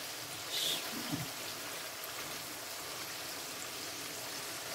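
Chicken livers sizzling in masala in a frying pan while a spatula stirs them, a steady frying hiss with a brief louder stir about half a second in. They are being briefly sautéed (bhuna) in the masala.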